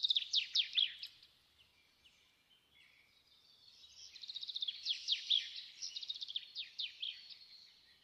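A songbird singing in two long phrases of rapid trills and quick downward-sliding whistles, the first at the start and the second from about three seconds in until near the end.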